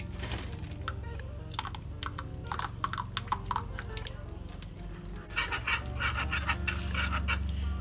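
Background music with a steady bass line. About five seconds in, a wire whisk starts rattling quickly against the inside of a metal saucepan of liquid, with a few scattered clicks and rustles before it.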